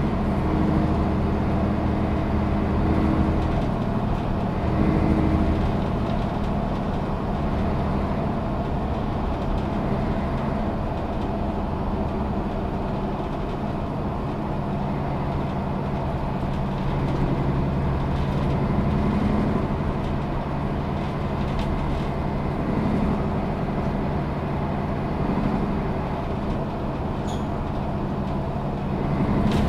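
A 2012 Setra S 415 NF low-floor city bus, its diesel engine and Voith automatic gearbox running with a steady low hum whose pitch shifts a little.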